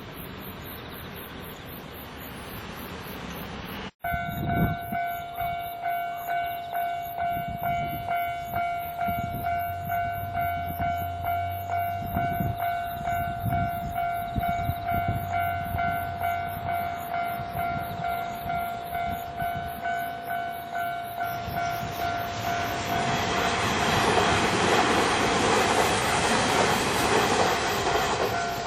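Japanese level-crossing warning bell, an electronic ding repeating in a steady beat, starting abruptly about four seconds in and signalling that a train is approaching. In the last few seconds a train runs through the crossing, its rumble swelling over the bell.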